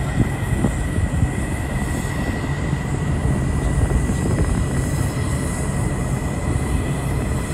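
Steady low rumble with a thin, steady high whine running through it: the background noise of an airfield apron, with no engine starting up or passing by.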